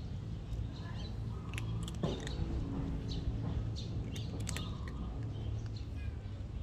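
Cat crunching dry kibble, a scatter of small crisp clicks, over a steady low rumble; birds chirp faintly in the background.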